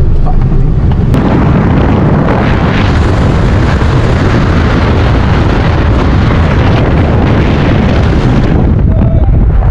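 Isuzu D-Max pickup on a road test, its engine and the wind so loud they overload the microphone. The roar turns much fuller and brighter about a second in and drops back near the end, as in a hard run under power.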